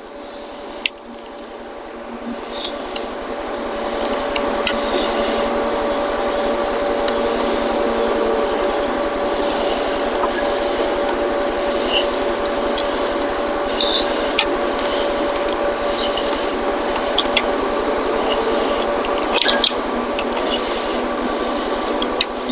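A steady mechanical whir with a held hum, swelling over the first few seconds and then holding level, with scattered light clicks and taps.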